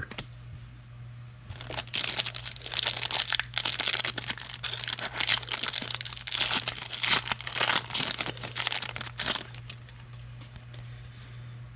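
Foil trading-card pack wrapper crinkling and tearing as a pack is opened and handled, most heavily from about two seconds in until near the end, over a steady low hum.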